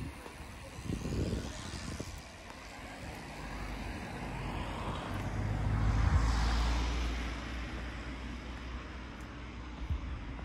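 A car driving past, growing louder to a peak about six seconds in and then fading away. A couple of low rumbles come near the start.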